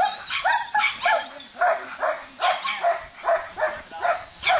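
Dog barking repeatedly and evenly, about two to three barks a second; the dog is a retired police K9, a Doberman–pit bull mix, worked on a man's arm after a bite command.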